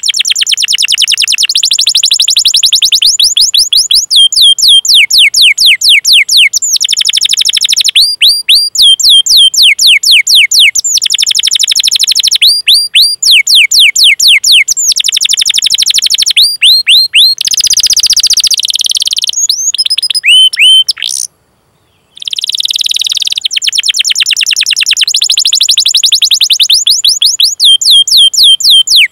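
Domestic canary singing long, fast trills of repeated downward-sweeping chirps, the 'cuit cuit' calls and rolls of a canary in full song, broken by short pauses and one brief silence about three-quarters of the way through.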